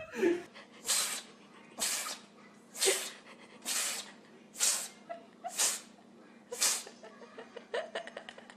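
Grey kitten giving seven short, breathy, voiceless calls, about one a second, with its mouth opened wide.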